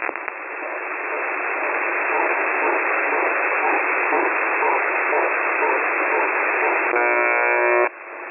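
Shortwave radio static, a steady band-limited hiss on the UVB-76 frequency after its voice message. About seven seconds in, the station's buzz tone comes back for about a second, a harsh buzz with many overtones, then cuts off.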